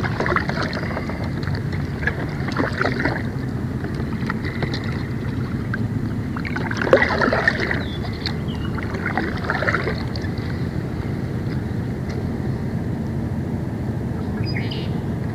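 Kayak paddle strokes: the blade dips and splashes in the water every few seconds, over steady low wind noise on the microphone.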